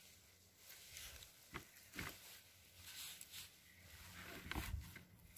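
Faint handling sounds of wild mushrooms being pulled up by hand and put into a plastic bucket: a few soft rustles and light knocks, the fullest knock about four and a half seconds in.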